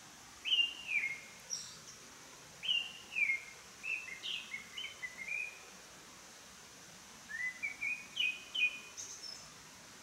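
A small songbird singing three phrases of short whistled notes, many of them sliding downward, with pauses between phrases, over a steady background hiss.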